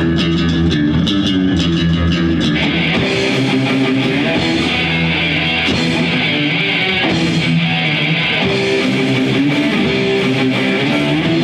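Heavy metal music: distorted electric guitar and bass, with rapid drum hits in the first couple of seconds, then sustained guitar chords.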